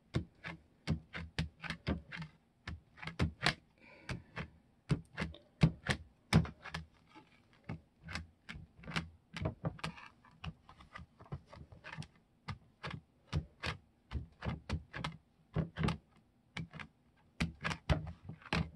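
Hand-held ink pad tapped again and again onto a plastic embossing folder to ink it: rapid irregular taps, a few a second, with short pauses.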